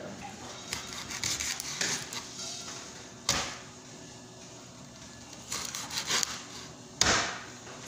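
Kitchen knife slicing cooked pork on a plastic cutting board, with scraping strokes of the blade. Two sharp knocks of the knife on the board, about three seconds in and near the end, are the loudest sounds.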